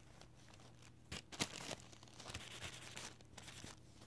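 Short bursts of scraping and rustling from a plastic scraper card and nail-stamping plate being handled and worked against each other.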